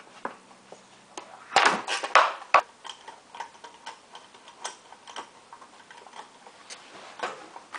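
Metal clicks and knocks of hand tools on a Briggs & Stratton mower engine as its cylinder head bolts are undone: a few louder knocks about two seconds in, then scattered light ticks.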